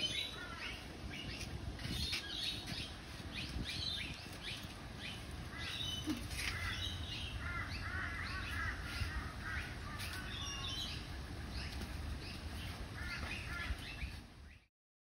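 Birds chirping, many short quick calls one after another, over a low steady rumble. All sound cuts off abruptly near the end.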